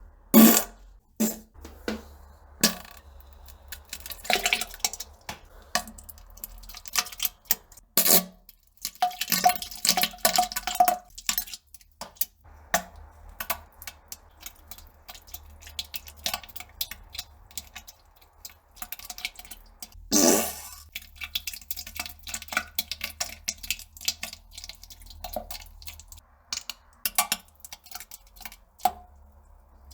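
Toilet sounds of a person pooping and farting: irregular sharp clicks and knocks with short fart bursts and splashes. The loudest bursts come near the start, about 8 seconds in and about 20 seconds in, with a run of short pitched blasts around 9 to 11 seconds.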